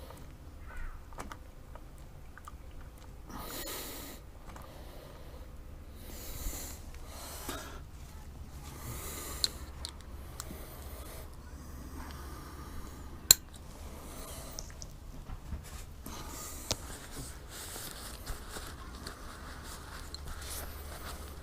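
Intermittent handling noises: short rustling or wiping sounds every second or two with scattered small clicks, and one sharp click about thirteen seconds in.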